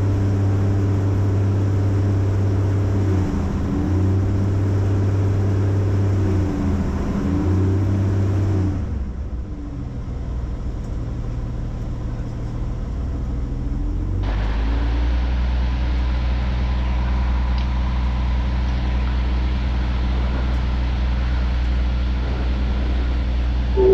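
Van's RV-10's piston engine and constant-speed propeller at run-up at about 1800 RPM during a prop cycle. Twice the engine note sags and comes back as the prop control is pulled back and pushed forward again, checking the governor. About nine seconds in the power comes back to a lower, quieter run, which rises a little a few seconds later and then holds steady.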